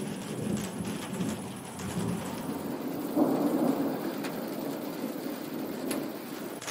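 Thunder rumbling low and steady over falling rain, with a louder peal of thunder breaking in about three seconds in.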